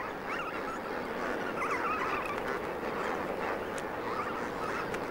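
A large flamingo colony calling: many short calls overlapping into a steady din.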